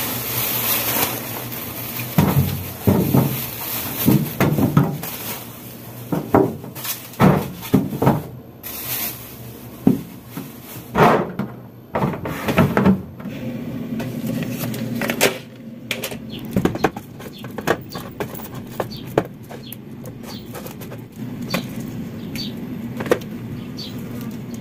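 Plastic grocery bags rustling and fruit and packages knocking against a refrigerator's plastic crisper drawer as groceries are loaded into it, with irregular knocks and bumps throughout.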